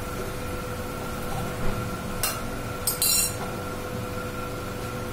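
Kitchen utensils clinking briefly: single clicks a little after two seconds in and near three seconds, then a short metallic clatter, over a steady background hum.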